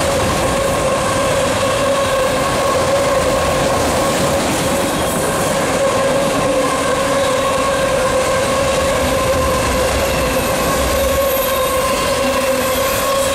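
Norfolk Southern freight train's autorack cars rolling past close by, steel wheels running on the rails with a steady squealing tone over the rumble.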